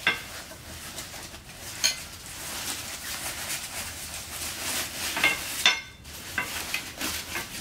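Rustling and scraping of a playard's fabric cover as its frame tubes are worked through it, with a few short clicks and knocks of the tubes and fittings, the sharpest about five and a half seconds in.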